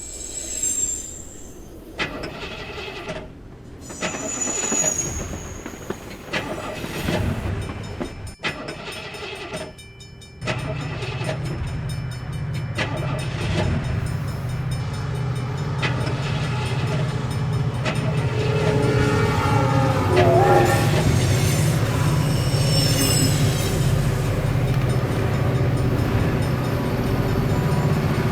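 Train sounds: after a few short, scattered noises and high whistle-like tones, a steady low train rumble starts about a third of the way in and runs on, with a horn sounding about two-thirds of the way in.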